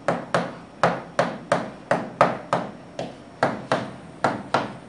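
A pen tapping and knocking on a smart board's screen as words are handwritten: a quick, slightly uneven run of sharp taps, about three a second, each with a short ringing tail.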